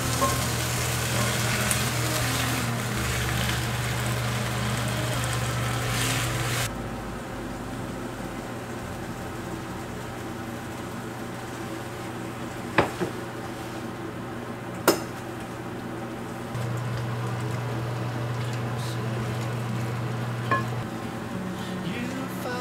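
Sliced onion and tomato sizzling in a frying pan while being stirred with chopsticks. The sizzle drops abruptly to a quieter frying hiss about a third of the way in, with a couple of sharp clicks in the middle.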